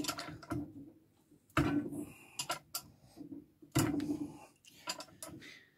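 Camshaft of a bare Rover K-series cylinder head turned by hand with a wrench on its pulley bolt: irregular sharp ticks and knocks, some with a short ring, as the valves open and shut.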